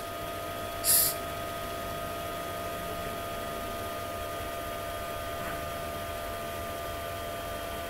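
Room tone from a desk microphone: steady low hiss with a faint steady electrical whine, and one brief soft hiss about a second in.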